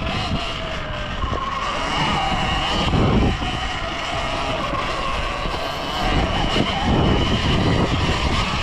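Surron Ultra Bee electric dirt bike riding a trail: the electric motor's whine rises and falls with the throttle, over the rumble of wind buffeting the microphone.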